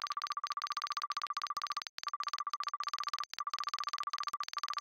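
Computer text-typing sound effect: a fast, even stream of short electronic ticks, each with the same beep-like pitch, broken by a few brief pauses.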